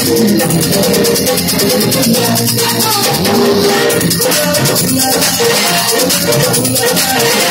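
Live band music, loud and steady, with an electric guitar and a fast, even, high-pitched percussion rhythm over a melodic backing.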